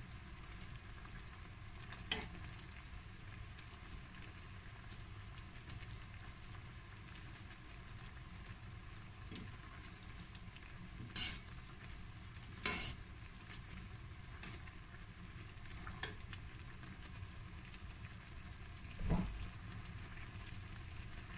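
Koesisters boiling in spiced sugar syrup in a stainless steel pan: a steady bubbling sizzle. A metal slotted spoon clinks and knocks against the pan a handful of times.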